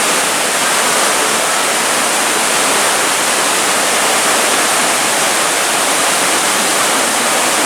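Steady, loud rushing hiss with no breaks.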